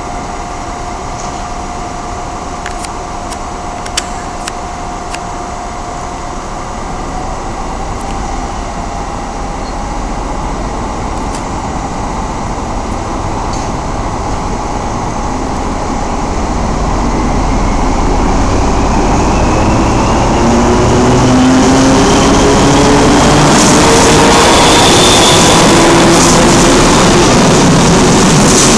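ČD class 754 diesel locomotive hauling a passenger train past the platform. Its engine note grows louder over the second half and rises in pitch, and the coaches rumble past near the end.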